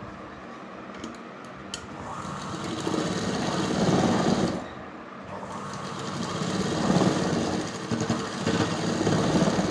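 Domestic sewing machine stitching a seam through thin cotton fabric. It starts about two seconds in and gets louder, stops briefly near the middle, then runs again.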